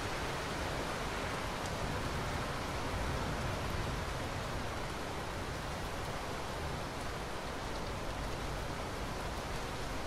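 Steady rain recorded as part of a thunderstorm, an even rushing hiss with no thunderclap in these seconds.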